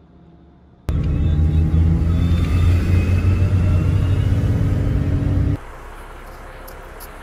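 Steady engine and road rumble heard from inside a moving vehicle's cabin. It starts abruptly about a second in and cuts off sharply after about five seconds, leaving quieter outdoor background noise.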